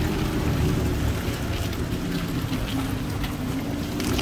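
Four-wheel-drive SUV engine running at low crawling speed, with its tyres crunching and splashing over wet gravel and mud; a few small stone clicks.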